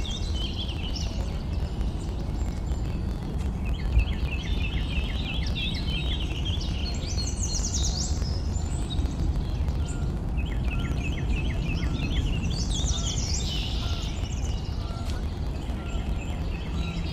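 Small songbirds singing over a steady low background rumble: every few seconds a phrase of quick high sweeping notes, and twice a run of rapid repeated notes.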